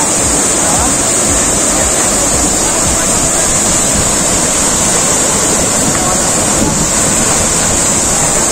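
Water pouring over an artificial cascade in a steady, loud rush, with an even high hiss over it.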